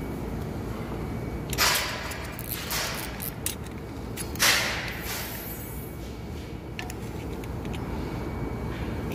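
A few short knocks and scrapes from handling in the shop, the loudest about one and a half seconds in and again about four and a half seconds in, over a steady low background hum.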